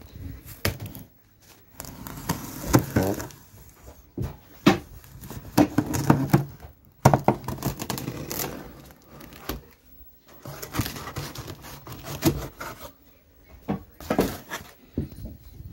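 Large cardboard box being handled and shifted about: irregular knocks, thuds and scraping of the cardboard.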